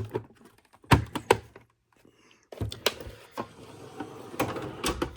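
Tools and a metal tool chest drawer being handled: sharp knocks and clunks, about seven in all, with a drawer sliding in the second half.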